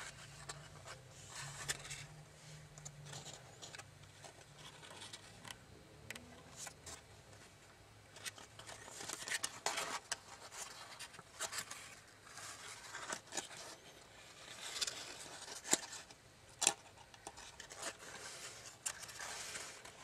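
Tissue foil paper of a folded origami bird crinkling and crackling as fingers pinch and shape it, in irregular small rustles with two sharper crackles about three-quarters of the way through.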